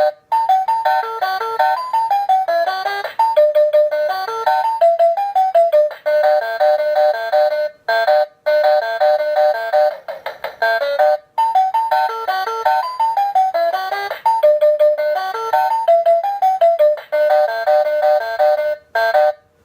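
Toy talking cash register playing its electronic tune after an item is scanned: a bright melody of short beeping notes in repeating phrases, with a few brief breaks, stopping near the end.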